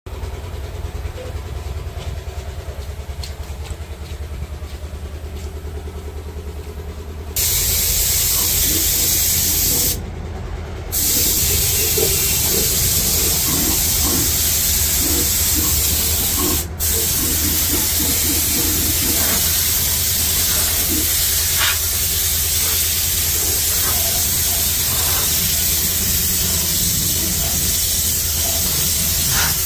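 A steady low machine hum, then about seven seconds in a spray gun starts hissing loudly and evenly. It breaks off briefly twice and carries on.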